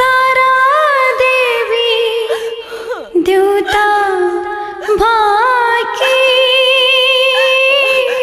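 Nepali ringtone melody sung by a high voice: long held notes with wavering pitch and slides, in phrases that break about 3 and 5 seconds in, with almost no bass under it.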